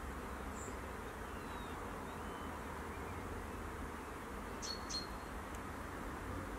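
Outdoor ambience: a steady hiss with a low rumble of wind on the microphone, and a quick double chirp, likely a small bird, a little over four and a half seconds in.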